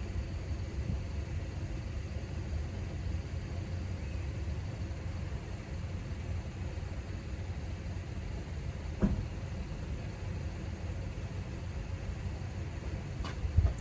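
Steady low rumble of a motor vehicle, with a single short knock about nine seconds in and another couple of knocks near the end.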